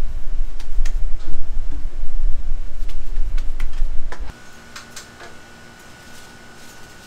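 A stainless steel mixing machine working a batch of minced meat-and-vegetable dumpling filling: a loud low rumble with scattered clicks and knocks, which cuts off about four seconds in. After that only a faint steady hum with a thin high tone is left.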